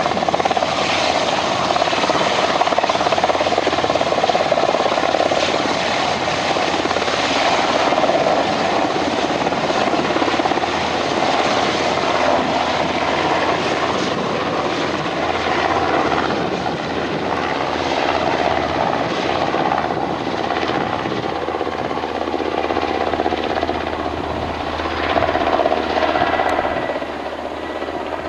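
AS332 Super Puma helicopter lifting off and climbing away: steady turbine and rotor noise, dropping a little near the end.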